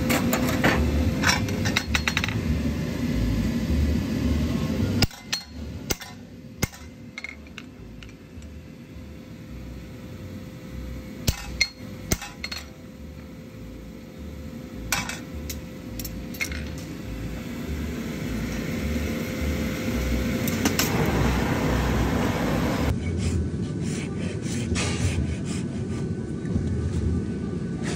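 Farrier work: scattered sharp metallic taps and clinks of hammers and steel tools, heard singly and in short clusters over a steady low hum.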